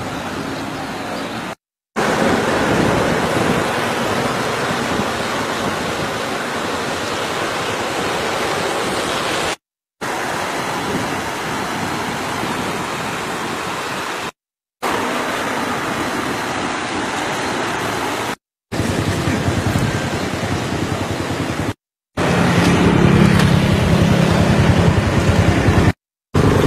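Steady rushing noise of a fast-flowing, flooded river and wind on the microphone, broken by several brief dropouts. A steady low hum joins it in the last few seconds.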